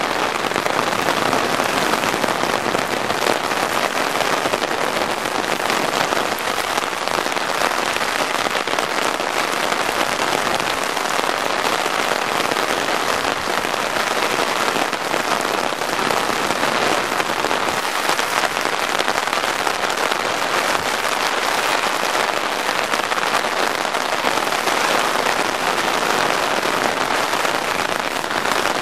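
Steady rain falling on wet pavement and drumming on an umbrella held over the microphone: a dense, even patter of drops with no let-up.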